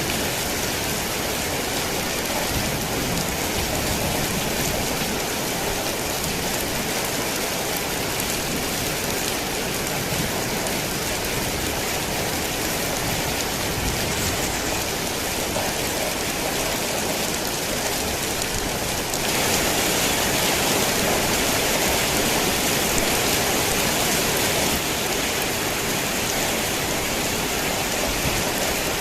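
Heavy rain drumming on a tin roof as a dense, steady hiss. It grows louder and brighter for about five seconds starting about two-thirds of the way in, then settles back.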